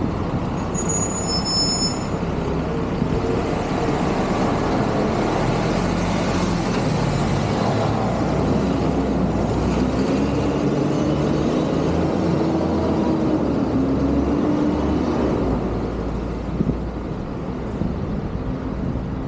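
Busy road traffic with heavy vehicles passing, a steady dense rumble. A brief high-pitched squeal sounds about a second in, and an engine note rises and then falls in the middle.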